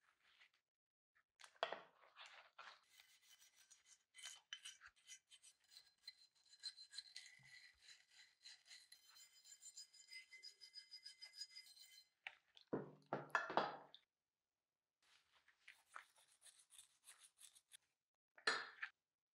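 Hand wire brush scrubbing a rust-stained steel part of an antique paper punch, a fine rapid rasping that lasts several seconds, scouring off rust and paint residue loosened by electrolysis. A couple of louder splashes follow as the part is handled in the tub of water.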